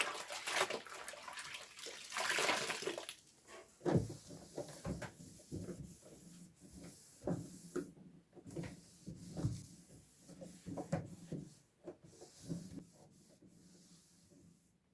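Water and vinegar cleaning solution splashing for about three seconds, then a run of light, irregular knocks and clatters as the fridge interior is worked on.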